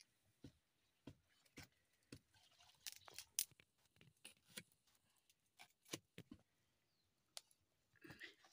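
Knife slicing raw radishes against a steel bowl: faint, irregular light clicks and taps.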